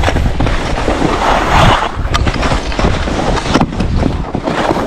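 Skis scraping and carving over packed snow on a fast downhill run, with wind rumbling on the microphone. The scraping swells about a second in.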